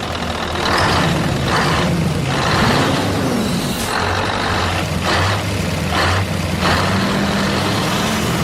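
Engine running with a steady low hum, its pitch rising and falling once near the middle, broken by several short hissing bursts.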